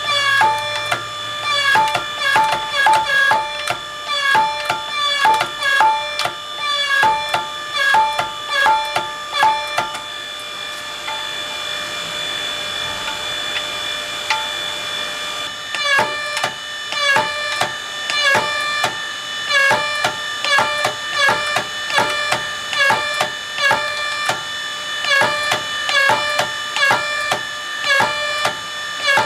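Background instrumental music made of quick repeated notes on a few fixed pitches. About ten seconds in, the notes give way to a held chord for several seconds, then the quick notes resume.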